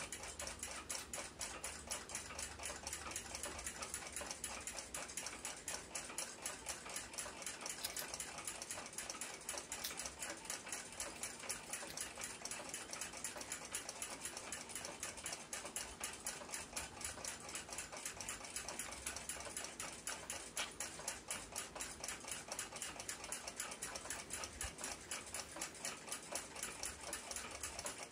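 Mechanical clock ticking quickly and evenly, about four ticks a second.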